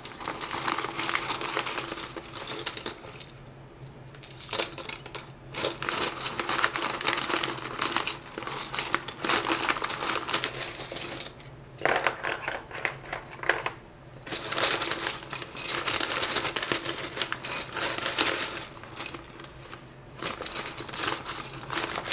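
Loose plastic keycaps clattering and clicking against each other as a hand rummages through a pile of them, searching for the arrow keys, with a few brief pauses.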